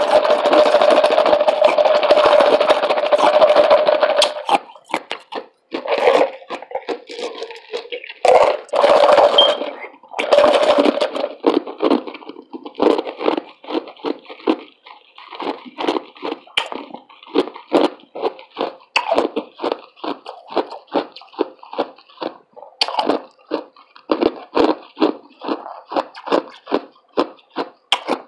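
Ice crunched and chewed between the teeth close to the microphone. It starts with a few seconds of dense, continuous crunching, then settles into steady chewing bites about two or three a second.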